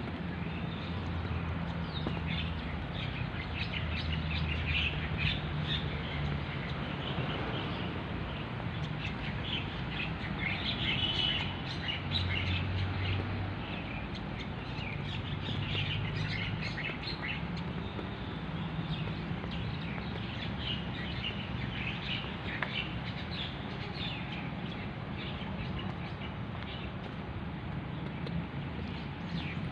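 Birds chirping in the trees, many short high calls scattered throughout, over a steady low hum.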